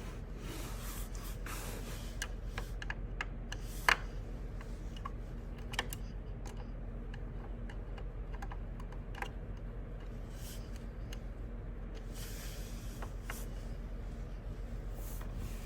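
Scattered small clicks, taps and short scrapes of tools and metal parts as a sewing machine is unscrewed and taken apart, with one sharp loud click about four seconds in. A steady low hum runs underneath.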